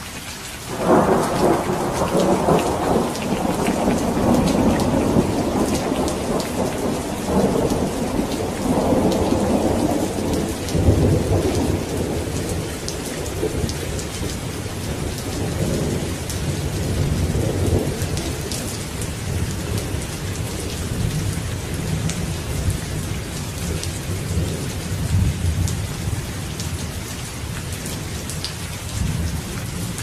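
Steady rain falling, with a thunderclap breaking about a second in and rumbling on, slowly fading over the next ten seconds or so.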